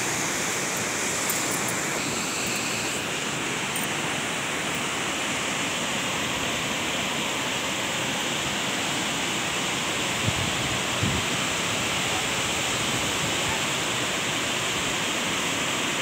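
Waterfall: a steady rush of falling water over rock, without a break.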